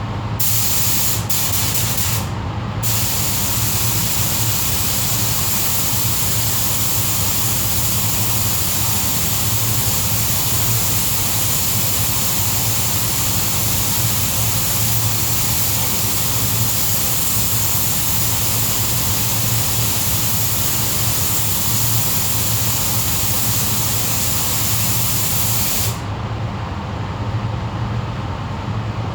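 Electric sander running on the tailgate's metal panel, with a steady abrasive hiss over a low motor hum. The hiss breaks off briefly twice in the first few seconds, then stops near the end while the low hum carries on.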